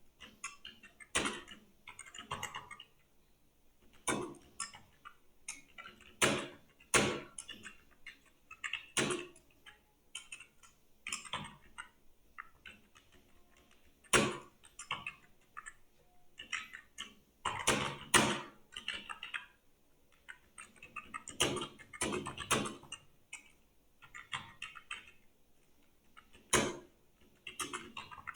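Computer keyboard being typed on in uneven runs of keystrokes with short pauses between them, a few keystrokes louder than the rest.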